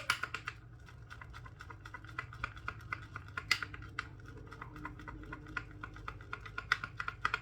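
Horsehair shaving brush worked against a hard puck of vintage Colgate shave soap to load it, making quick, irregular clicking and scratchy tapping.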